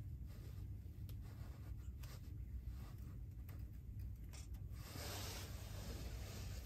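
Faint rubbing and scraping with a few light ticks as a hand feeds small sticks into the firebox of a small wood stove, followed by a longer, louder rustle near the end.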